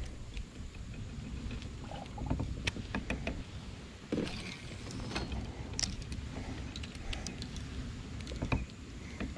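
Gear handling in a fishing kayak: scattered clicks and knocks from a baitcasting rod and reel and the kayak's hull and fittings, over a low, uneven rumble.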